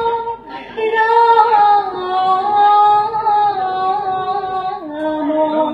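Voices singing an Assamese dihanam, a devotional nam chant, in long held notes that slide between pitches, with a short breath pause just after the start. The melody steps down to a lower note near the end.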